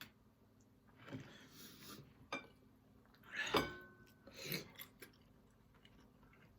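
Quiet eating and table noises: a few soft mouth and handling sounds, with one sharp knock followed by a brief ring about three and a half seconds in.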